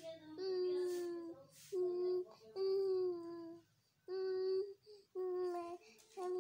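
Baby cooing and babbling: a run of drawn-out vowel sounds on a steady pitch, each lasting up to about a second, with short pauses between.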